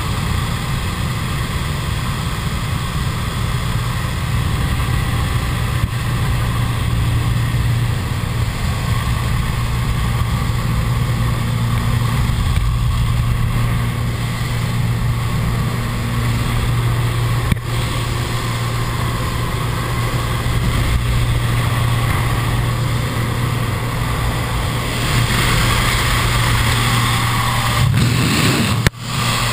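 Small jump plane's engine droning steadily inside the cabin. About 25 seconds in, a rush of wind noise grows louder as the door is opened for the jumpers to exit, and the sound cuts out briefly near the end.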